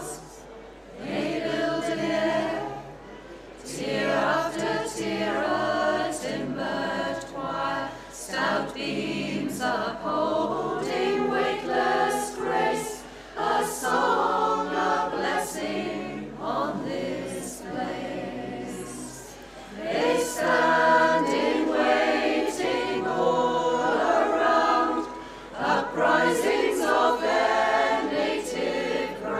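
Women's choir singing a cappella, phrases swelling and falling back with short breaks between them.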